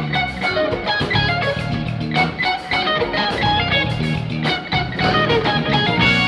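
Band music with an electric guitar playing a busy melodic line over a bass line and a steady beat.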